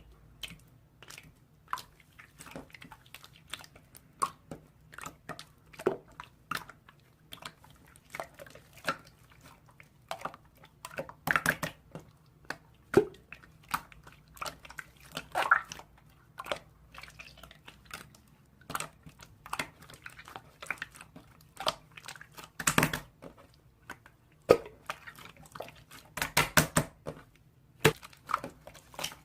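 Slime being squeezed and stretched by hand, giving off irregular wet clicks and pops, with a few louder pops in clusters.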